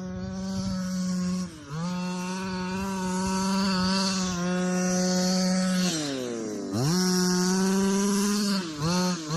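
26cc two-stroke engine of a 1/5-scale RC short-course truck held at high revs, with a brief throttle lift about a second and a half in. Around six seconds in the revs drop away and climb back, and there are quick on-off blips near the end.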